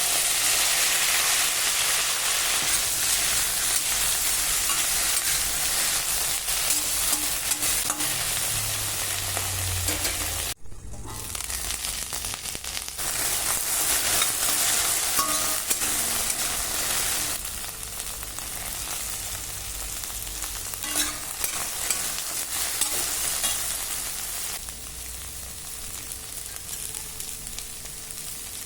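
Food sizzling as it fries in hot oil in a pan, a steady hiss that drops out briefly about ten seconds in, then goes on, a little quieter near the end.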